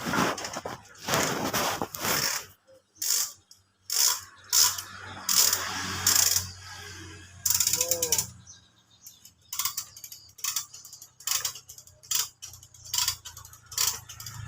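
Irregular bursts of mechanical clicking and ratcheting from hand tools at work, with a low steady hum for a few seconds in the middle.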